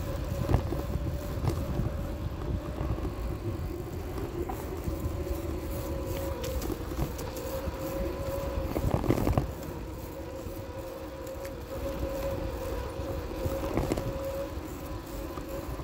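Bicycle rolling along a paved trail, heard through a phone mounted on its handlebar: low rumble and rattle of the ride with a steady hum, small clicks, and a louder jolt about nine seconds in.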